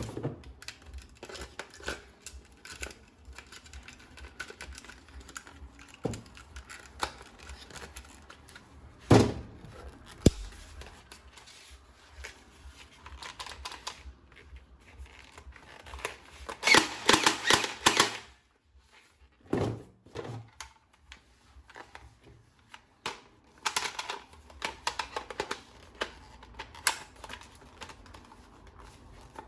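Plastic toy gun parts and their packaging being handled: scattered clicks and knocks, two sharper knocks about nine and ten seconds in, and a dense burst of rustling and clicking around seventeen seconds in.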